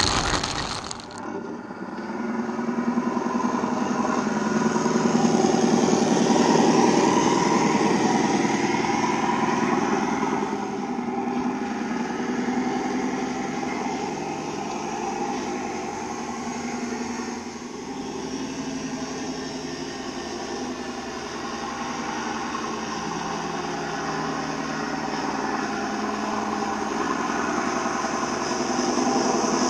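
A rush of tipped pellets pouring out of the tipper body stops about a second in. Simulated diesel engine sound from a radio-controlled model Scania truck follows as it drives, swelling and easing with the throttle.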